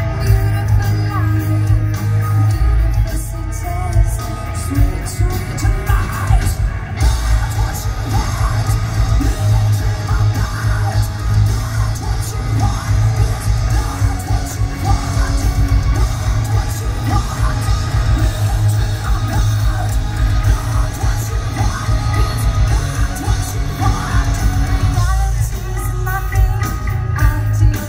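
Live metal band playing at full volume: heavy distorted guitars, bass and drums under a female voice that sings and screams.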